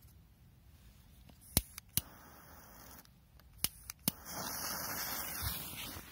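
A few sharp clicks, then a lit 'Smoke Scream' firecracker hissing steadily for about two seconds.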